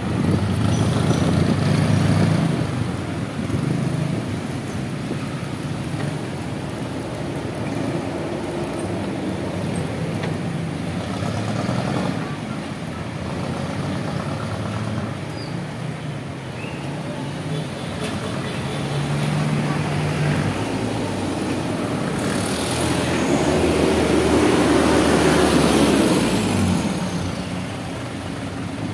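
Busy city street traffic: jeepney, van and motorcycle engines running close by in slow traffic, with a steady engine hum. It grows louder for several seconds about three-quarters of the way through, then eases off.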